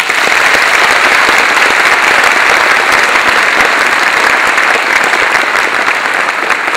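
Audience applauding: dense, steady clapping that breaks out at once.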